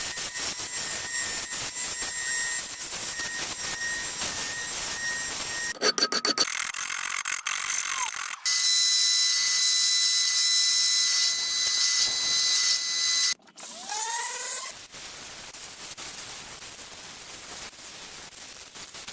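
Electric power tool motors running in a string of short edited takes: a dense, high-pitched whir with a steady whine, broken off abruptly several times. Just after two-thirds of the way through, a motor spins up with a rising whine.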